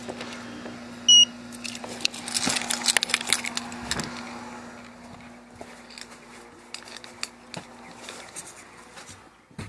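Wiegand keypad RFID card reader giving one short high beep as a key fob is scanned, the sign that access is granted and the lock has released. Then keys jangle and a lever door handle is turned and the door opened, with scattered clicks and rustles.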